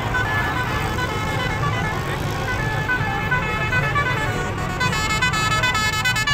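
A vehicle engine running with a horn tooting over it in short tones that step from note to note, coming faster and more densely from about five seconds in.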